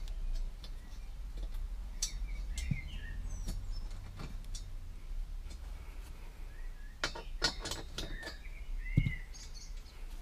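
Light clicks and clinks of a hand tool and metal parts being handled at the car's floor, with a quick cluster about seven seconds in and a dull knock about nine seconds in, the loudest sound, over a steady low hum. A few short chirps come through in the background.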